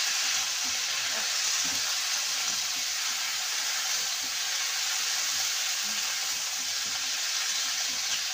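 Broccoli florets and potato pieces sizzling in hot oil in a metal kadai as they are stirred and tossed with a metal spatula.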